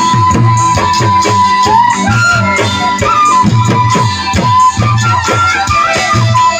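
Live Assamese Bihu folk music: a dhol drum beating a steady, driving rhythm under a high instrumental melody from violin and keyboard, with no singing.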